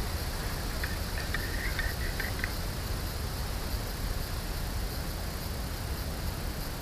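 Wind buffeting the microphone, a steady low rumble with hiss, and a few faint light clinks about a second in.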